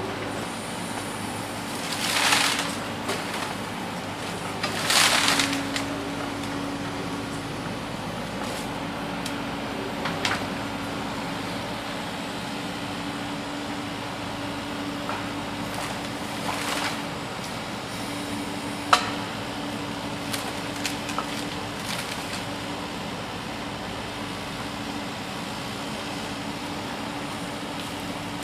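Small model excavator's motor humming steadily, with a few short scraping, rushing bursts (the loudest about 2 and 5 seconds in) and a sharp click about 19 seconds in.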